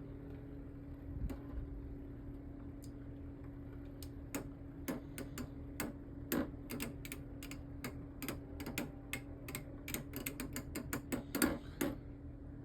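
Two spinning Beyblade tops clashing in battle: sharp clacks as they collide, a few scattered at first, then coming fast and irregular from about four seconds in until just before the end.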